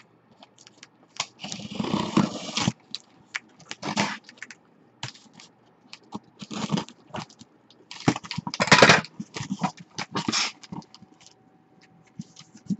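Sealed cardboard shipping case handled and turned over on a table: irregular scraping and rubbing of cardboard, with a longer scrape a second or two in and another near the end.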